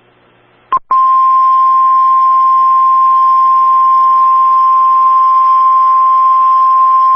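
NOAA Weather Radio 1050 Hz warning alarm tone of an Emergency Alert System tornado warning: a single steady high-pitched tone over faint radio hiss. It starts about three-quarters of a second in, after a short pause and a brief blip, and signals that a warning message follows.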